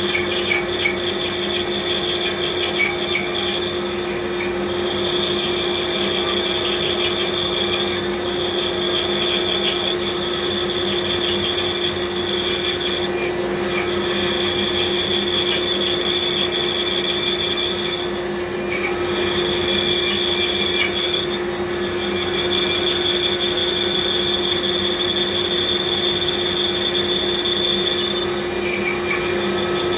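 Bandsaw running and cutting through thick wood: a steady motor hum under a higher cutting hiss that eases off briefly several times as the stock is steered through turns.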